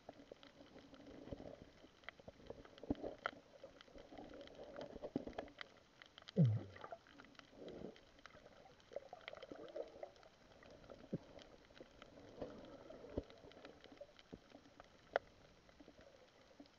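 Muffled underwater sound picked up through a camera's waterproof housing: scattered faint clicks and crackles over a low, uneven murmur. One louder sound falls in pitch about six seconds in.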